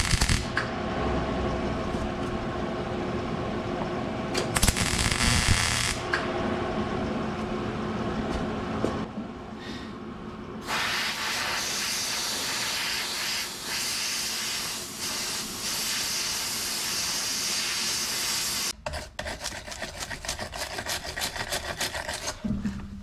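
MIG welding arc crackling as a stud is welded onto a steel vent wing window frame right beside the glass, followed by a long steady hiss. Near the end a hand tool scrapes over the fresh weld in quick, rhythmic strokes.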